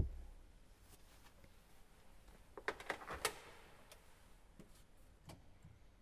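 A quiet church interior with a few soft knocks and clicks as a person sits down at a wooden organ bench; the loudest is a short cluster about halfway through, with a few fainter clicks after. The organ is not playing yet.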